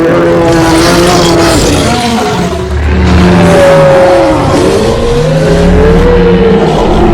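Custom-made Godzilla roar sound effect: one long, loud cry whose pitch bends up and down over a deep rumble.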